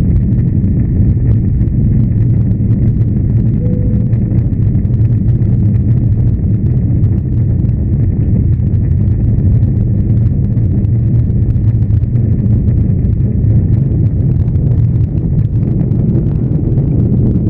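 Steady low drone of a Boeing airliner's engines and the air rushing past, heard from inside the cabin during the climb after takeoff.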